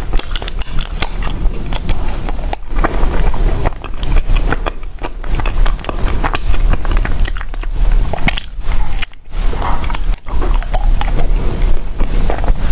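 Close-miked crunching as pieces of a brown frozen ice block are bitten off and chewed, a dense run of sharp cracks and crackles.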